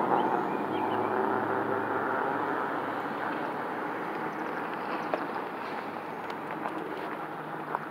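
Outdoor rumble of a passing vehicle that slowly fades away, with a few faint chirps and small clicks.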